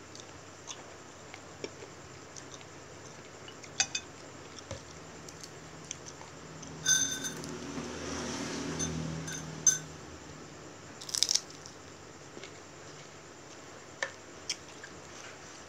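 Eating sounds: scattered sharp clicks of wooden chopsticks against a ceramic bowl, with chewing of raw shrimp. About halfway through, a low hummed sound lasts roughly three seconds.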